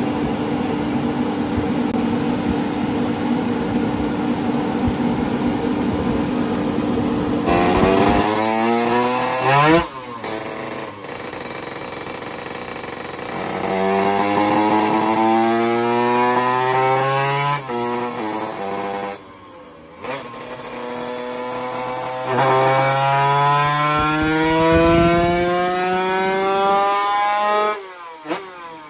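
Drag-racing motorcycle engine on a chassis dynamometer: it runs steadily at high revs, then makes three full-throttle pulls, the pitch climbing each time before it cuts off abruptly.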